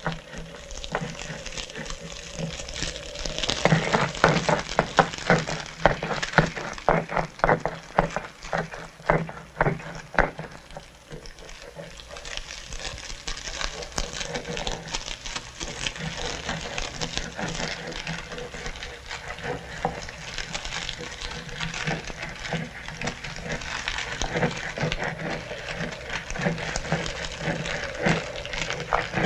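Wood fire crackling and hissing under a clay pot, with a busy run of sharp crackles from about four to eleven seconds in, then fewer, over a steady low hum.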